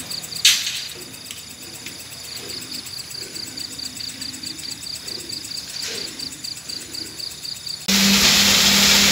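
Crickets chirping steadily, a high pulse about four to five times a second, over a quiet night background. Near the end this is cut off by a sudden loud, steady machinery noise with a low hum.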